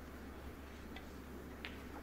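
Hushed snooker arena: a steady low hum with two faint clicks, about a second in and again past halfway.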